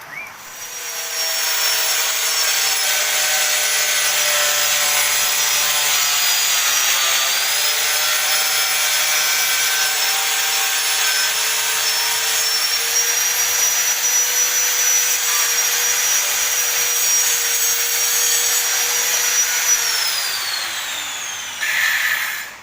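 A hand-held electric power tool's motor gets up to speed, runs with a steady high whine for about twenty seconds, its pitch dipping briefly once under load, then is switched off and winds down with its pitch falling.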